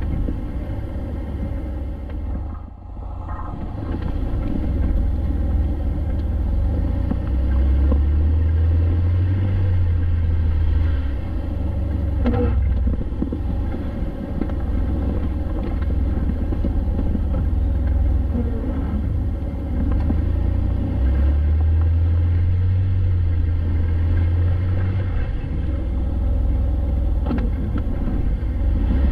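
Jeep Wrangler driving, a steady low rumble of engine and tyres that swells and eases, with a few faint knocks along the way.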